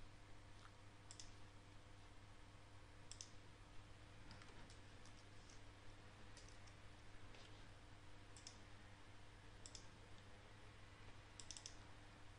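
Faint, scattered clicks of a computer keyboard and mouse, about a dozen spread unevenly, a few close together near the end, over a low steady hum.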